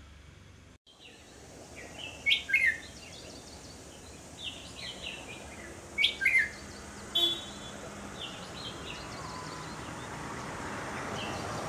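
Red-whiskered bulbul calling in short, loud phrases of quick falling notes, one about two seconds in and another about six seconds in, with a brief call about a second later. Softer bird chirps come between the phrases, over a steady hiss that grows louder toward the end.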